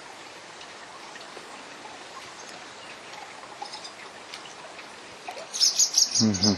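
Steady trickling, water-like hiss with a few faint ticks. A short loud voice-like sound comes in near the end.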